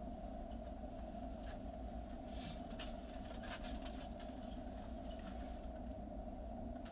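Quiet room tone: a steady low electrical hum, with faint scattered clicks and rustles from someone moving at the microphone.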